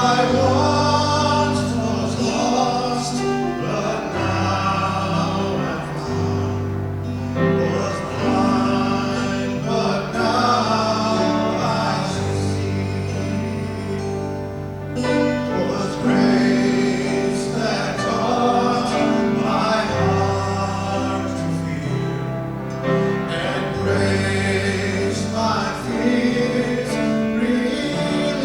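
Worship song: voices singing over instrumental accompaniment, with sustained bass notes changing every second or two.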